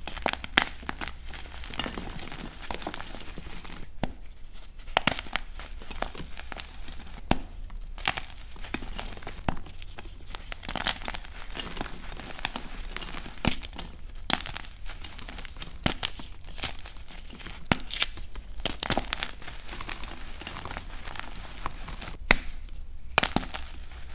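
Dyed gym chalk blocks being snapped and crushed by hand: dry, crumbly crunches and sharp crackles coming irregularly throughout, with a few louder snaps as pieces break apart.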